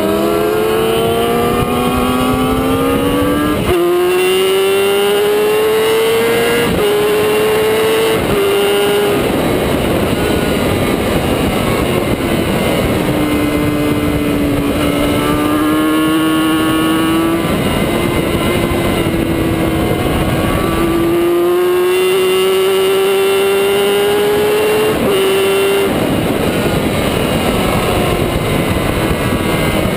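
Sport motorcycle engine at full throttle, heard from a camera mounted on the bike: the note climbs and drops sharply at each upshift, three quick shifts in the first nine seconds, then eases down and builds again through the gears. Steady wind rush on the microphone runs underneath.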